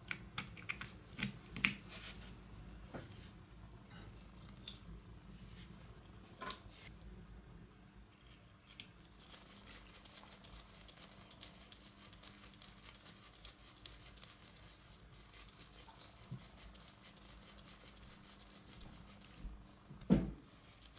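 Small metal parts of a Märklin 1321 electric motor clicking and tapping as they are handled, then a precision screwdriver turning a small screw into the motor's metal housing with a fine, rapid ticking. A single knock about 20 seconds in is the loudest sound.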